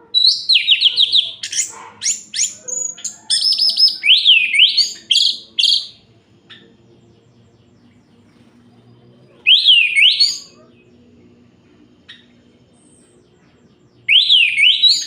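Orange-headed thrush singing: a long run of rapid, sweeping whistled phrases in the first six seconds, then a short burst of song about nine and a half seconds in, and another starting near the end.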